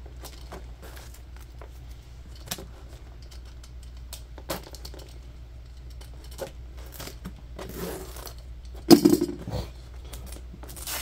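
Hands working at a taped plastic battery pack housing: scattered small clicks, taps and scrapes, with one louder rasping noise about nine seconds in, over a steady low hum.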